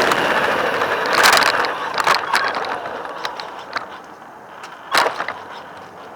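Radio-controlled car running over rough ground: a steady rolling and motor noise that fades away over the first few seconds, with a few sharp knocks, the loudest about five seconds in.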